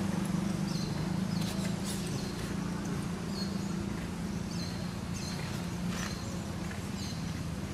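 Outdoor ambience: a steady low drone that slowly fades, with short high chirps every second or so and a few faint clicks.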